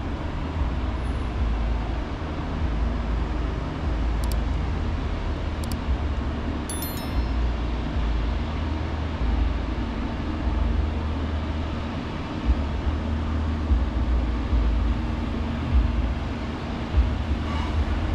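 Outdoor campus ambience during a walk: a steady low rumble and hum with uneven low buffeting, a few faint clicks, and a short high chirp about seven seconds in.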